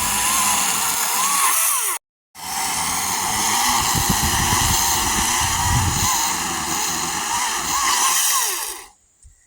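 Chainsaw running at speed, cutting through large logs. It breaks off abruptly for a moment about two seconds in, then resumes and stops shortly before the end.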